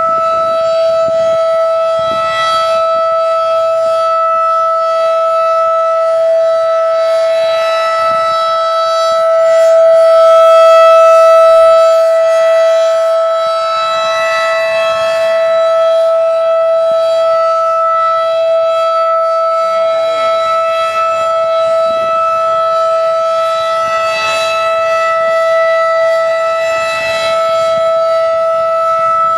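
Second-generation Federal Signal 2001 outdoor warning siren sounding a steady alert tone at about 690 Hz. The pitch holds level, and the sound swells louder once about ten seconds in as the slowly rotating horn sweeps past.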